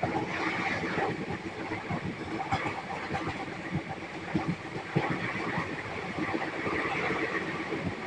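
Passenger train running, heard from inside a coach: a continuous rumble of the wheels on the rails with irregular clacks and knocks, the sharpest about five seconds in.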